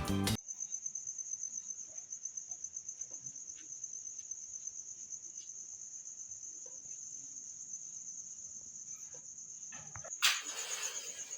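Cricket chirping in a steady, high, pulsing trill. A short, loud rushing noise breaks in about ten seconds in.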